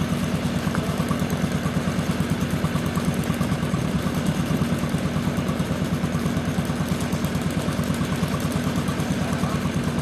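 An engine idling steadily, a low, even throb that holds without revving.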